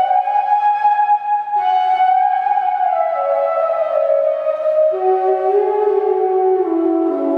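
Bansuri bamboo flute playing a slow melody of long held notes that step downward, dropping into a lower register about five seconds in.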